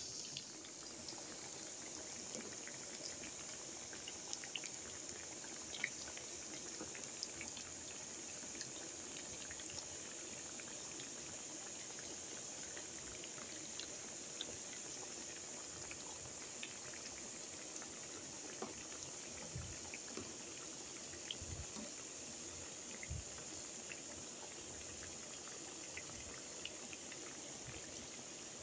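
Chicken nuggets deep-frying in a pan of oil: a steady sizzle with scattered small crackles. A few soft, low knocks come in the last third.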